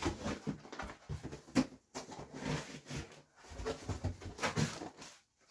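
Irregular rustling and crinkling as a cardboard shipping box and its contents are handled and opened. It comes in short bursts with brief pauses.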